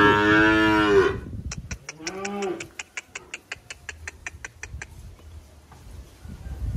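Simmental calf mooing: a long falling call that fades out about a second in, then a second, shorter moo around two seconds in. A quick run of sharp clicks, about six a second, goes on from about one and a half to five seconds in.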